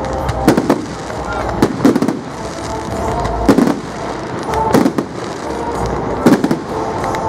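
Fireworks display: aerial shells bursting with sharp bangs, mostly in close pairs, about every second and a half.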